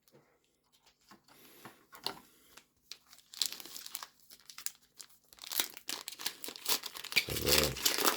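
Foil Pokémon trading card booster pack wrapper crinkling and being torn open. After a few faint handling clicks, the crinkling comes in dense and loud from about three seconds in.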